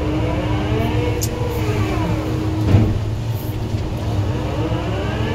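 Excavator diesel engine running steadily, heard from inside the cab, with a hydraulic whine that rises and falls twice as the boom and bucket work. A single knock about halfway through.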